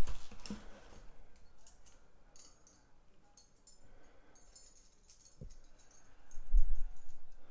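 Light, scattered metallic ticks and clicks of thin stainless-steel lock picks being handled, with a sharp knock about five and a half seconds in and a couple of dull low bumps near the end.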